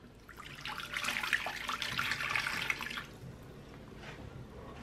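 Water being poured from a glass measuring cup into the empty plastic bowl of a Bosch stand mixer. It runs as a steady splashing pour and stops about three seconds in, leaving a faint trickle.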